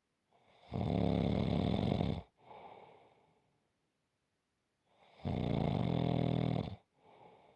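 Snoring: two long, loud, fluttering snores about four seconds apart, each followed by a softer, fading breath.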